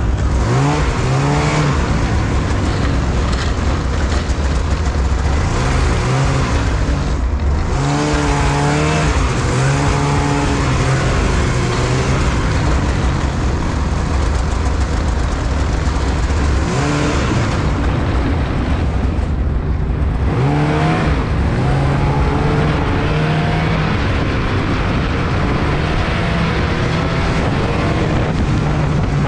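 Arctic Cat snowmobile engine running under way, its pitch rising and falling repeatedly as the throttle is opened and eased, over a steady rushing noise.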